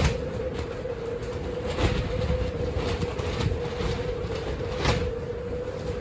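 High winds buffeting a polyethylene-covered high tunnel: a constant low rumble with irregular sharp snaps and thumps as the plastic film and frame take the gusts, over a steady hum.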